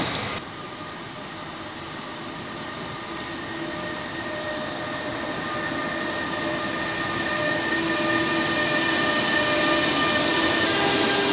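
E.483 electric locomotive hauling loaded car-carrier wagons through the station: a rumble of the train with a steady whine over it, growing louder as the train draws near and passes.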